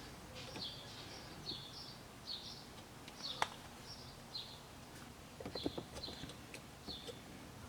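A small bird chirping faintly and repeatedly, about once a second. A sharp click comes about three and a half seconds in, and a few small clicks and taps follow a couple of seconds later.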